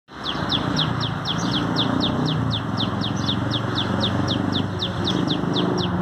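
Common tailorbird singing: a fast, steady series of high notes, about four a second, each slurring downward, over a low steady background hum.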